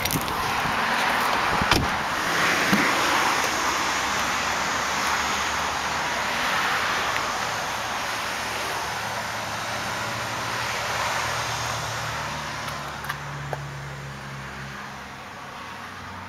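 Road traffic going past: a rush of tyre and engine noise that swells and fades, with a low steady engine hum in the second half and a few light clicks.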